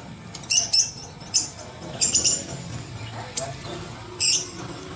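Water splashing and sloshing in a plastic basin as a hand scrubs small figurines under the water, with about five short, sharp splashes.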